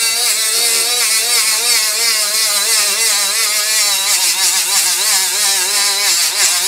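Milwaukee M12 right-angle die grinder set to about 15,000 rpm, grinding rust off the inside of a brake rotor hub with a 2-inch flap disc. The motor's pitch wavers up and down as it loads against the metal, over a steady gritty hiss from the abrasive; a lot louder at this speed.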